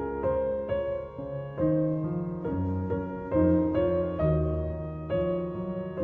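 Background piano music: a melody of notes changing about every half second over held low bass notes.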